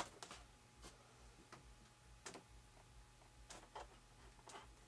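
Faint, irregular small clicks of a model airplane's rudder pushrod linkage being turned and adjusted by hand, about eight light ticks spread across a few seconds.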